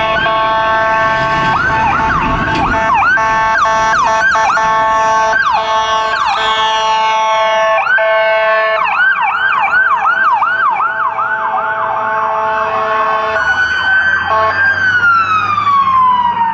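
Emergency vehicle sirens from passing fire apparatus, overlapping: fast repeating yelp sweeps over a steady blaring horn tone, then a slow falling wail that climbs back up near the end.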